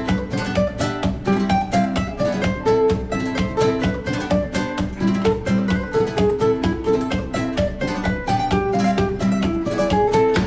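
Background music: plucked guitar playing a quick, steady run of notes.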